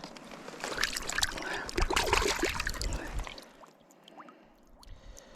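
Splashing and sloshing of river water as a knife and fish fillet are rinsed by hand, with sharp little knocks mixed in; it runs busily for about three seconds, then dies down.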